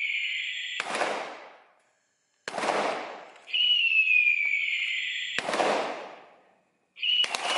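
Firework sounds from a gas-fired salute cart that burns oxygen and gas. A falling whistle ends in a sharp bang, a second bang follows, then another falling whistle ends in a bang. Near the end a rapid string of firecracker-like cracks begins.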